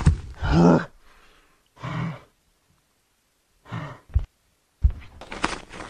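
A woman's voice breathing heavily: a string of short sighs and gasps with silent pauses between, in an acted creature voice. Two dull low thumps fall about four and five seconds in.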